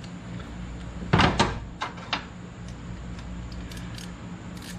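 A few sharp knocks and clanks of hand tools being handled, the loudest two close together about a second in, then a couple of lighter ones, over a steady low hum.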